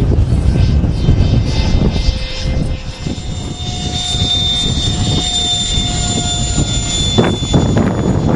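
Wind rumbling on the microphone, heaviest in the first three seconds, over the steady high whine of a radio-controlled model airplane's motor, which comes through clearer from about three seconds in.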